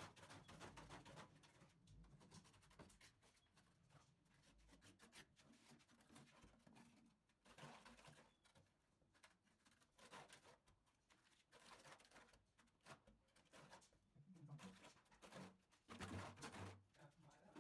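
Near silence, with faint, irregular scrapes and pats of wet cement being worked by hand.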